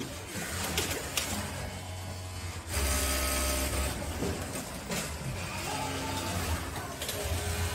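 Industrial sewing machines running on a garment production floor, a steady low hum with scattered clicks; the sound shifts abruptly and gets louder about three seconds in.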